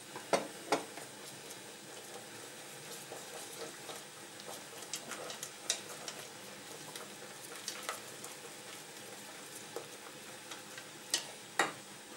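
Wire whisk stirring a thick cream sauce in a stainless steel saucepan, with scattered light taps of the whisk against the pan over a faint steady hiss. Two sharper taps come just after the start and two more near the end.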